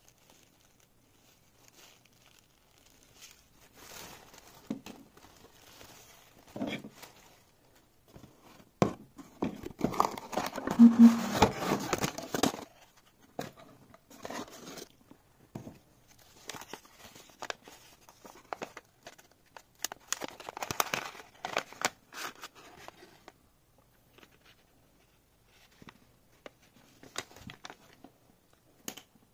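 Packaging being handled while unboxing: cardboard and plastic bags rustling and crinkling in irregular spells, with a few sharp taps, loudest about a third of the way in.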